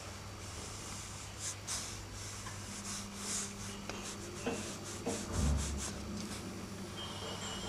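Pencil strokes scratching and rubbing on drawing paper, a string of short strokes, with a low thump about five and a half seconds in over a steady low hum.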